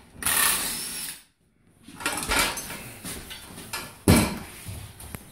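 Cordless drill running in short bursts. A single sharp knock about four seconds in.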